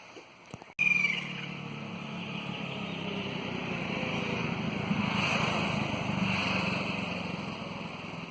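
A motor engine humming, swelling to a peak about midway and then fading, as if a vehicle passes by. A short high bird call sounds briefly about a second in.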